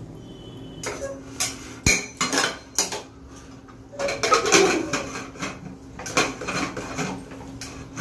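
Pressure cooker lid clinking and scraping against the metal cooker as it is picked up and fitted on. The sharp metal clinks come in scattered strokes and are loudest and densest about halfway through.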